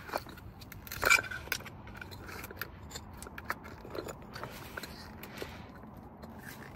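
Hand-tool work on a metal engine mount: scattered scraping and small metallic clicks, with one sharper click about a second in, as the mount's latches are worked loose.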